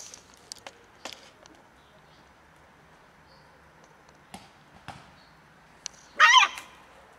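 A single short, high-pitched, wavering animal cry about six seconds in, from a puppy and a cat squaring off over a food box. A few light clicks and taps come before it.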